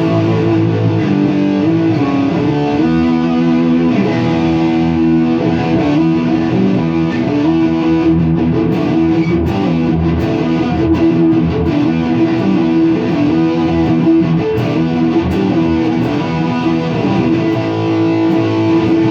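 Electric guitar, a rebuilt Takamine GX100 with its original DiMarzio pickups, played continuously through a small lunchbox tube amp, with sustained notes and chords changing every second or so.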